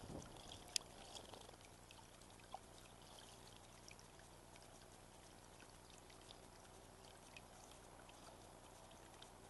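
Faint, steady trickle of water into a garden basin, with scattered light ticks and splashes and one sharp click just under a second in.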